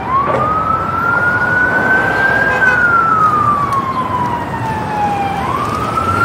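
Siren wailing slowly: its pitch rises for about two and a half seconds, falls for about three, then starts rising again near the end.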